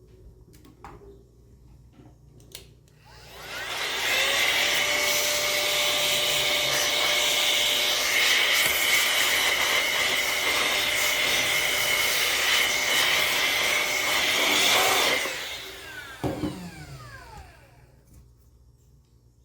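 Electric air blower switched on about three seconds in, running loud and steady with a high whine for about twelve seconds while blowing dust out of the laptop, then switched off and spinning down with a falling whine.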